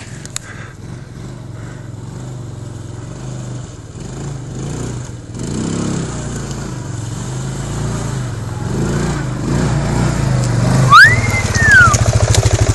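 CF Moto 500 4x4 quad's engine running and growing steadily louder, with a fast even pulsing near the end. About eleven seconds in there is a short high whistle that rises and then falls.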